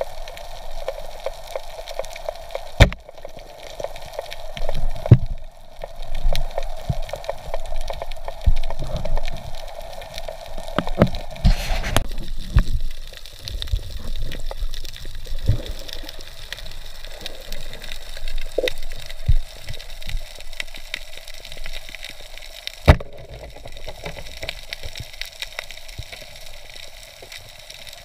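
Underwater sound picked up by a camera in the water during a spearfishing dive: water moving and bubbling, with a steady hum, irregular low thuds and a few sharp knocks and clicks.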